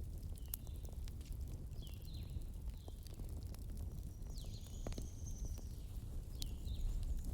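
Wood fire crackling, with sharp scattered pops over a low steady rumble. Short, high falling chirps come every second or so, with one longer high tone about halfway through.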